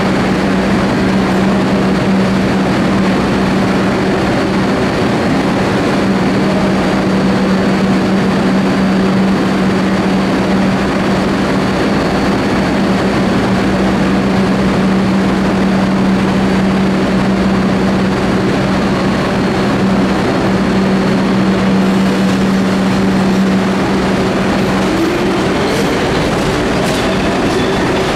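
R62A New York City subway train rolling slowly into an underground station: a steady rumble of wheels on rail under a constant low hum. The hum stops a few seconds before the end, and a rising whine and wheel clatter follow as the cars come alongside the platform.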